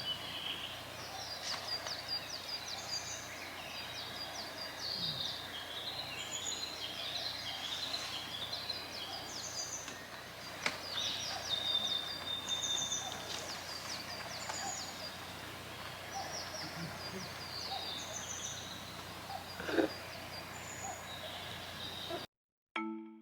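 Several wild birds singing at once: short chirps and trilling phrases repeating and overlapping, over a steady low hiss, with one brief louder low sound about twenty seconds in.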